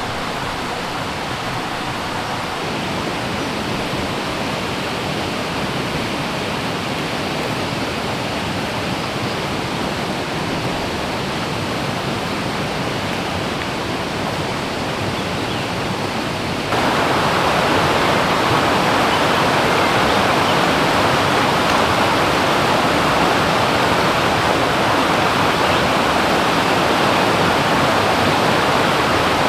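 A forest stream running steadily, a constant rush of water. About two-thirds of the way through it suddenly becomes louder and fuller.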